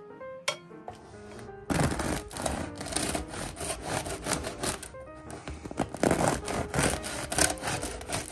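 Serrated bread knife sawing through a crusty baguette on a cutting board: a rough, crunchy rasp in repeated strokes, starting about two seconds in. Light background music plays underneath.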